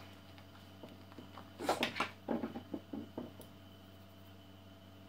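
A short run of clicks and knocks about two seconds in, like small objects being handled, over a steady low electrical hum.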